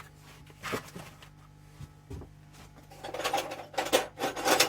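Loose screwdrivers and small metal hardware clinking and clattering on a table as they are handled: a couple of single knocks, then a busier run of clinking from about three seconds in.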